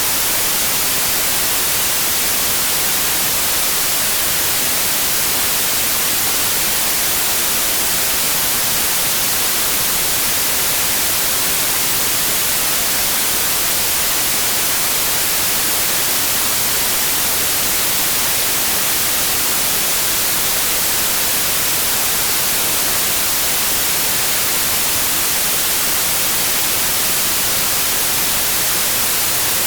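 Steady white noise: an even hiss, strongest in the treble, with no changes.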